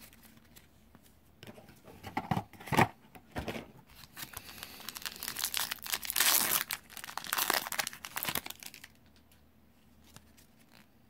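Foil wrapper of a Magic: The Gathering booster pack being torn open and crinkled. It starts with a few sharp crackles, then about five seconds of steady tearing and crinkling.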